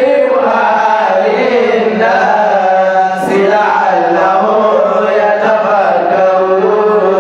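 A man's voice chanting a melodic Quranic recitation in Arabic, long drawn-out notes that waver and bend in pitch, with a short break about three seconds in.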